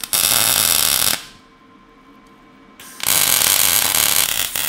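Welding arc burning on a pipe joint, crackling and hissing in two bursts: one about a second long at the start, then a longer one from about three seconds in.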